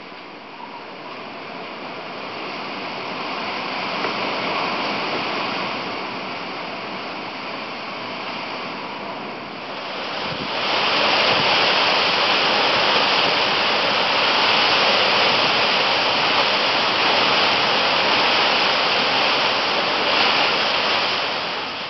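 Hurricane wind blowing hard through trees: a steady rushing noise that swells a little about four seconds in, then turns suddenly louder and hissier about ten seconds in.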